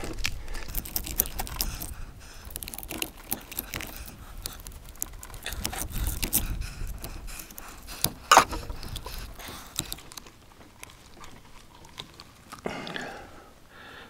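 A knife cutting and scraping through a block of ballistics gel, with scattered clicks and handling noises and one sharper click about eight seconds in; quieter over the last few seconds.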